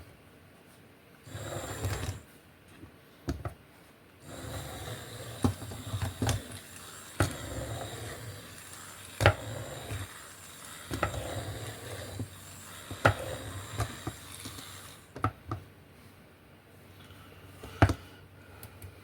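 Small electric drive motors and plastic gearing of a kit-built remote-control car running, briefly about a second in and then steadily for about ten seconds, with sharp clicks scattered through it and a last click near the end.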